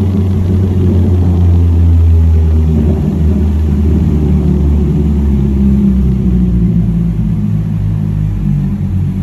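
Mazda MX-5 Miata ND2's four-cylinder engine running loud through a muffler-delete exhaust on a crackle-and-pop tune, driving slowly through a concrete parking garage. The exhaust note turns rough and uneven for a few seconds in the middle, then settles back to a steady drone.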